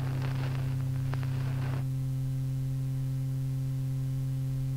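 Steady electrical hum on an old 1952 lecture tape recording, with crackling static and a single click that stop abruptly about two seconds in, leaving the hum and faint hiss.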